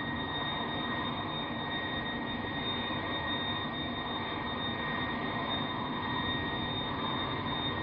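Airbus A330's jet engines running at low power as the airliner taxis in, heard from inside the cabin: a steady rush with a high whine held at one pitch.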